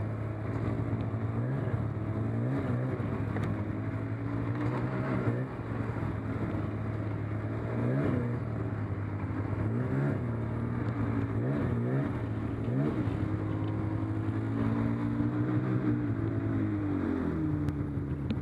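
Snowmobile engine running under the rider, with short rises and falls in revs as the throttle is worked along the trail. Near the end the pitch falls steadily as the sled slows and comes down toward idle.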